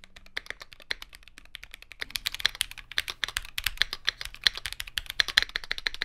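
Typing on a Keychron Q1 aluminium gasket-mount keyboard with lubed and filmed Gateron Black Ink V2 switches and a sheet of sorbothane damping the case, a rapid run of muted keystrokes. The typing gets louder and busier about two seconds in.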